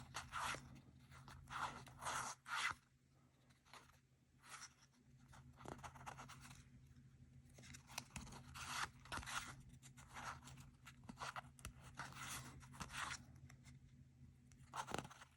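Faint papery scrapes and rustles of thick trading cards being slid apart and leafed through by hand, coming in short irregular clusters with pauses; some of the cards are sticking together. A faint steady hum runs underneath.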